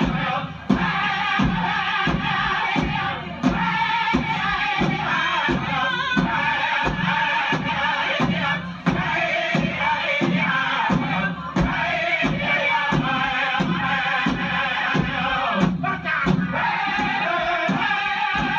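Powwow drum and group singing for a chicken dance song: a steady drumbeat under high chanted vocals.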